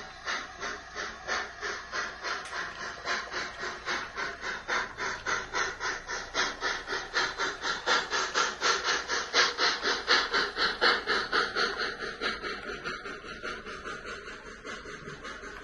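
Sound-fitted model streamlined steam locomotive (LNER A4 Pacific type) running with a steady, quick chuff and steam hiss as it pulls out with its coaches. The chuffs grow louder as it passes and fade away near the end.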